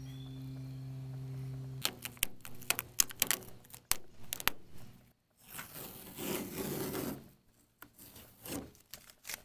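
Carrier film being peeled off a stick-on plastic emblem, with sharp crinkling crackles, then a longer ripping stretch and a couple of short rips as masking tape is pulled off the painted tailgate. A steady low hum cuts off about two seconds in.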